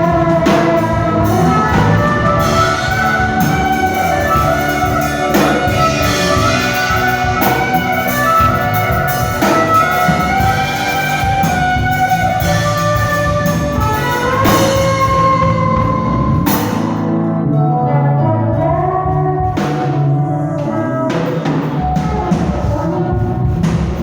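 Band music: sustained melody lines over a drum kit keeping a steady beat, with the brighter upper part of the sound dropping away in the last several seconds.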